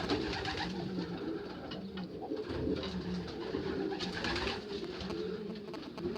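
Racing pigeons cooing in the loft: several low, overlapping coos.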